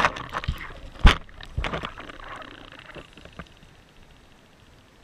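Sea water splashing and sloshing around a camera at the surface, with a sharp knock about a second in; the splashing dies away after about three seconds.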